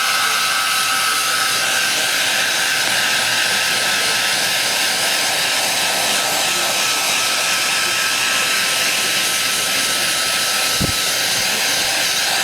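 Hair dryer running steadily: a constant rush of blown air with a thin, steady whine from the motor.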